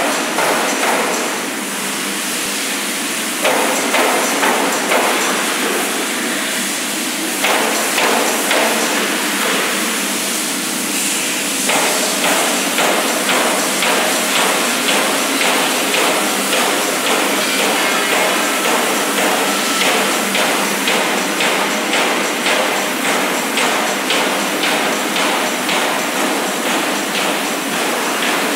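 Repeated metal pounding of sheet-metal factory machinery, a steady beat of about two strokes a second, with a louder stretch starting a few seconds in.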